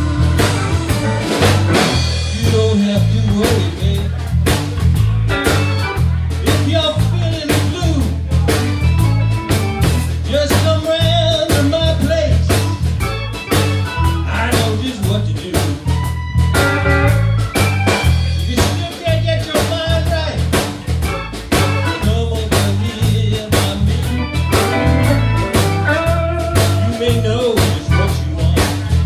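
Live band playing a song on electric guitar, electric bass, drum kit and keyboard.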